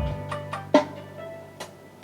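Dance remix music played through a sound system. A deep bass note comes in at the start, with sharp drum hits and plucked notes about every 0.8 seconds.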